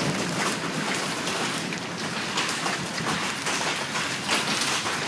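Hail and rain falling on the ground and pavement: a steady hiss with many small, scattered ticks of hailstones landing.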